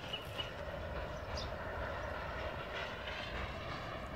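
Freight train rolling away into the distance, a steady low rumble with no clear beat, with a few short bird chirps over it.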